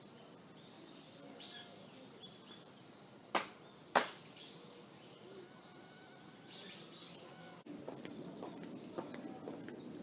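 Two sharp hand claps about half a second apart, the kashiwade claps of prayer at a Shinto shrine, over faint birdsong.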